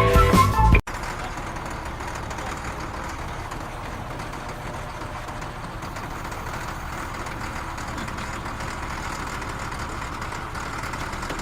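Steady, even machine noise, like a running engine, starting abruptly under a second in as a burst of rock music cuts off.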